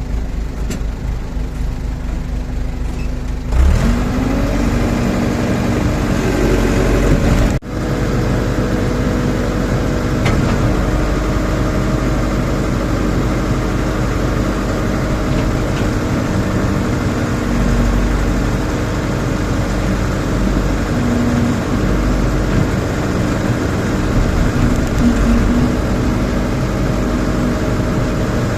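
Rondon backhoe loader's diesel engine idling, then revved up sharply about three and a half seconds in and held at high revs, with a brief dropout shortly after.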